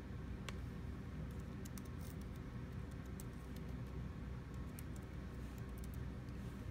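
Laptop keys tapped in scattered light clicks as a short entry is typed, over a steady low background hum.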